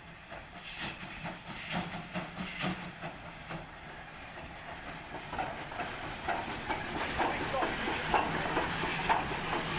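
Polish 0-8-0T Slask class TKp steam tank locomotive arriving along the platform, growing louder as it passes close. Regular beats come about once a second at first, then a denser clatter of wheels and running gear with escaping steam hissing.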